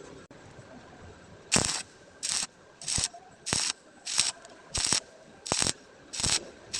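Welding arc struck in short, evenly spaced bursts, a stitch or whip technique: about eight quick crackling spurts, roughly one and a half a second, starting about a second and a half in.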